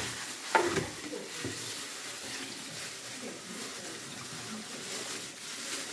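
Kitchen tap running steadily into a sink as raw chicken leg and thigh pieces are rinsed under warm water, with a short knock about half a second in.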